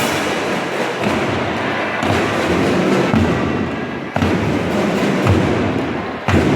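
School marching drum band playing a dense wash of snare drums and cymbals with heavy bass drum hits.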